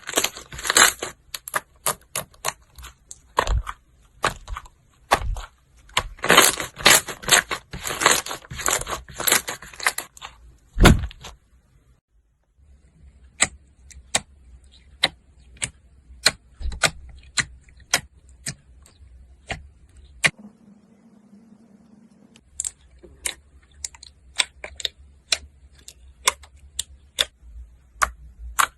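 Slime being squeezed and pressed by hand, making sharp crackling clicks and pops. The clicks come in dense clusters for about the first eleven seconds, then as sparser single snaps, with a brief steady hum a little after the middle.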